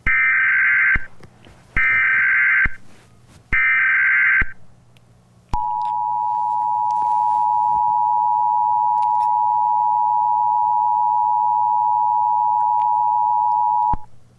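Emergency Alert System tones: three one-second blasts of the SAME digital header, then the steady two-tone attention signal held for about eight and a half seconds, cutting off sharply.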